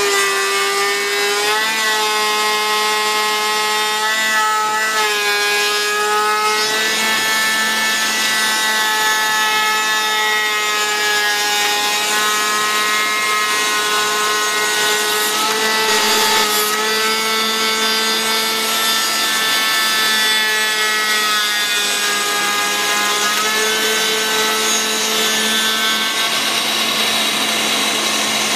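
CNC router spindle running while its bit cuts a wavy profile through a layered wooden board. It makes a steady whine with the rasp of wood being chewed away, and the pitch dips briefly every few seconds as the bit loads up in the cut, over a steady lower hum.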